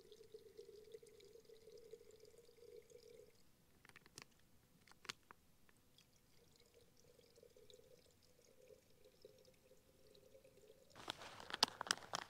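Filtered water trickling out of a Sawyer Mini squeeze filter into a bottle, faint and steady, with a couple of small clicks midway and louder plastic handling clicks and rustle near the end.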